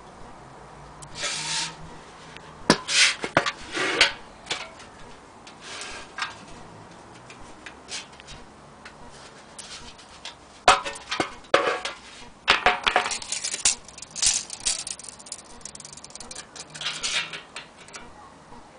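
An antique Edison phonograph horn of thin sheet metal being handled: irregular knocks, clinks and scraping rubs, with a busy run of them about halfway through.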